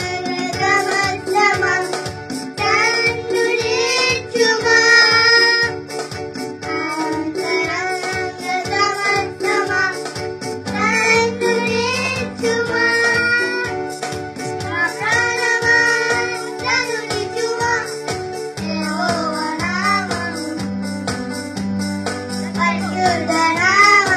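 Two boys singing a song together into microphones, accompanied by an electronic keyboard playing held chords over a steady beat.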